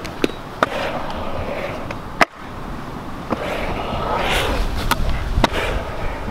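Small hard wheels of a skateboard and a kick scooter rolling over skatepark concrete, with several sharp clacks of hits and landings. The rolling grows louder in the second half.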